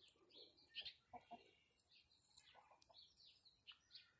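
Faint chicken clucking: a few low clucks about a second in and again past the middle, with short high chirps scattered throughout.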